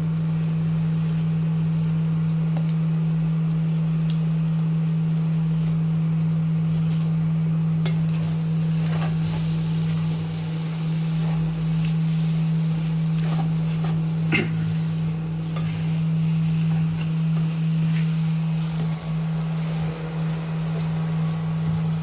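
Spiced masala for an egg curry sizzling in a pan and being stirred, with scattered clicks and scrapes of the utensil against the pan. The sizzling hiss grows louder from about a third of the way in. Under it runs a steady low hum.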